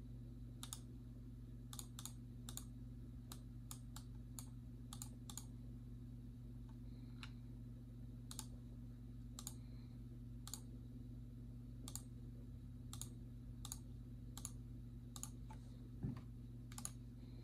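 Faint computer mouse clicks at irregular intervals, some twenty in all, roughly one a second, over a steady low hum.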